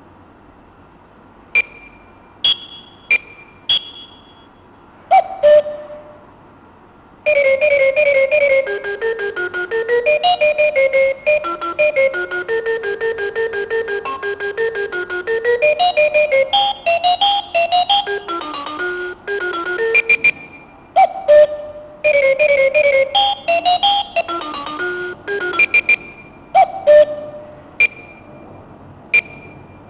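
Talking alarm clock sounding short electronic beeps at a few different pitches, then playing a simple electronic alarm tune of clipped beeping notes for about twenty seconds, followed by more single beeps.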